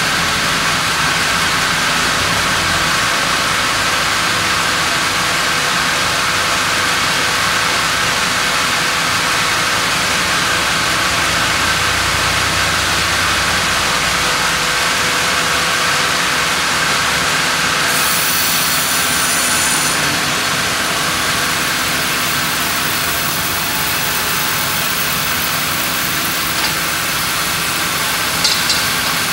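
Large log band saw mill running steadily as its carriage carries a monkeypod (rain tree) log along the blade, a constant mechanical drone. There is a short hiss about two-thirds of the way through and a couple of light clicks near the end.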